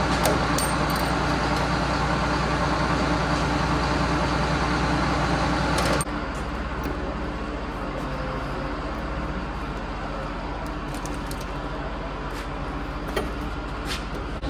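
A steady mechanical drone with a low hum, which drops abruptly in level about six seconds in, and a few light metallic clinks from hand tools at the truck's battery box.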